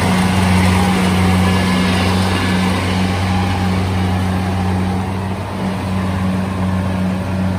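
Kubota DC-70 rice combine harvester running steadily under load as it cuts standing rice: a loud, even diesel engine hum with the noise of its cutting and threshing machinery.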